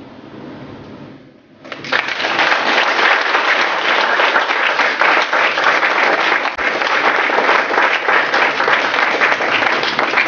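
Audience applauding, breaking out suddenly about two seconds in and going on loud and steady as a dense wash of many hand claps.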